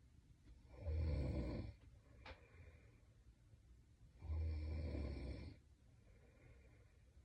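A sleeping woman snoring: two loud snores, each about a second long and some three and a half seconds apart, with quiet breathing between.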